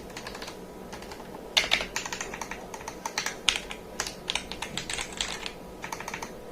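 Akko 5075S mechanical keyboard being typed on: rapid runs of keystroke clacks in bursts, with short pauses between them, as a sound test of its switches.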